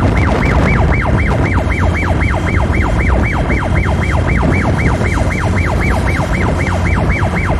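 Electronic siren in a fast yelp, sweeping up and down about four times a second, over steady wind and road rumble from a moving vehicle.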